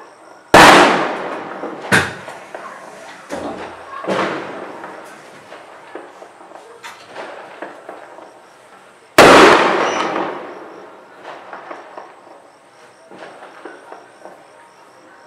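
Diwali firecrackers going off: two loud bangs, about half a second in and about nine seconds in, each echoing and fading over a second or more, with smaller bangs between two and four seconds in and scattered distant pops throughout.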